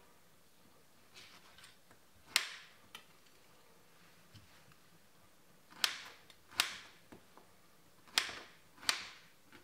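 A kitchen knife cutting a peeled mango on a chopping board: about half a dozen sharp knocks as the blade meets the board, spaced unevenly and several coming in pairs.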